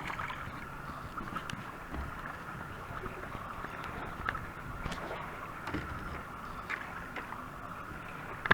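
Water sloshing, with scattered small splashes, at the lake's edge as a hooked pike minnow is brought in to shore by hand.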